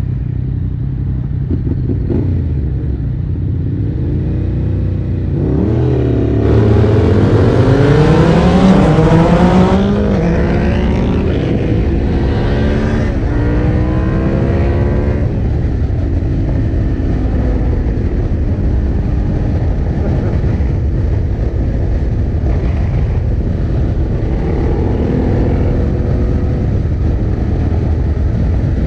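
Motorcycle engine under hard acceleration. The note climbs in pitch and gets loud about six seconds in, then drops and climbs again through three gear changes before settling into a steady cruise, with wind rumble on the microphone.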